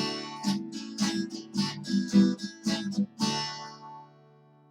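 Acoustic guitar strummed, a run of chords between sung verses; about three seconds in, the last chord is left to ring and fades away.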